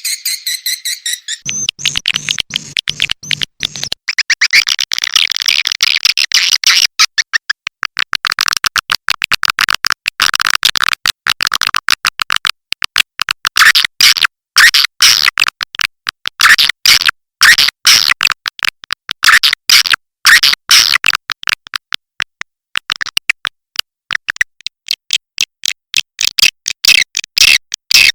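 Swiftlet lure call recording: dense, rapid chirping and twittering of edible-nest swiftlets, played back in quick trains with short gaps between them. A low pulsing buzz runs under it for a couple of seconds near the start.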